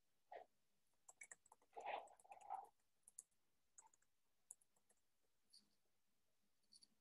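Near silence broken by faint, scattered computer clicks, with a short muffled noise about two seconds in.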